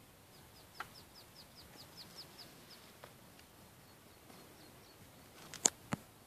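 A quick run of about ten short, high chirping calls, about four a second, each dropping slightly in pitch, followed by a few fainter ones. Near the end come a few sharp clicks, one of them the loudest sound here.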